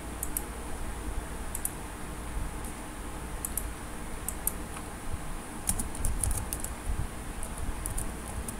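Typing on a computer keyboard: scattered key clicks, with a quicker run a little past the middle, over a low steady hum.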